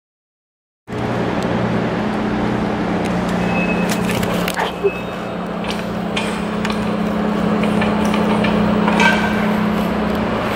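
Dead silence for about a second, then a steady low hum over a hiss of background noise, with a few light clicks and knocks.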